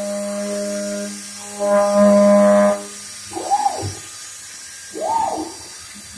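CNC machining centre milling a metal block: a steady, buzzy cutting tone with a brief dip about a second in. Near the halfway point the cut stops and the sound gets quieter, and two whines rise and fall in pitch as the machine moves between cuts.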